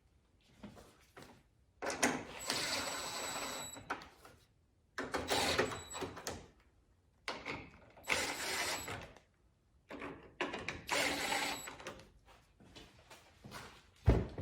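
Cordless power driver running in four short bursts, driving in the four small screws that hold the hatch touch sensor into plastic grommets, each run a whirring whine lasting one to two seconds.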